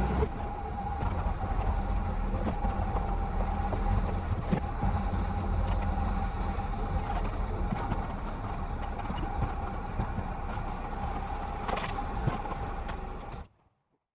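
Truck engine running steadily at low speed while backing up with a load of logs, with a few light knocks. It cuts off abruptly near the end.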